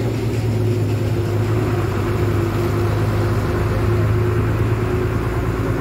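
Motor vehicle engine running steadily: a constant low hum with a steady higher tone over road noise.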